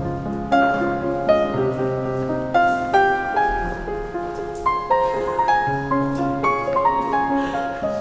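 Background piano music: a gentle melody of single notes over low chords.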